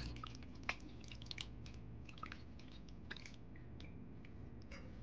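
Hands rubbing and sloshing tomatoes in a stainless steel bowl of water: faint, irregular small splashes and wet squishes.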